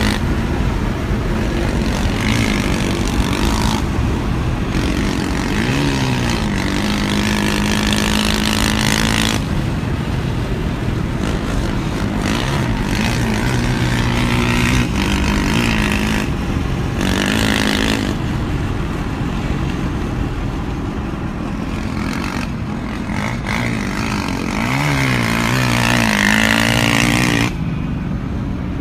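Road and wind noise from inside a moving truck cab, with the engines of the truck and a Honda XR400 dirt bike running alongside. An engine note rises and falls several times, most clearly about a fifth of the way in and again near the end.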